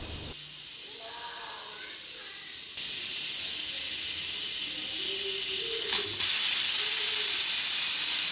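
Stovetop pressure cooker hissing steadily as steam escapes from its valve while the meat cooks under pressure; the hiss gets louder about three seconds in.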